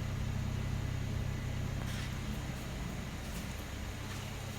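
Mercedes-Benz W212 E-Class engine idling steadily, a low even hum.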